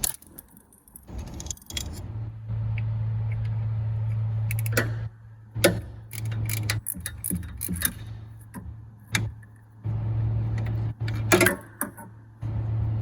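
Sharp metal clinks and clicks at irregular intervals as hand tools and loose timing parts are handled while the tensioner arm and chain guide are unbolted, over a low hum that starts and stops several times.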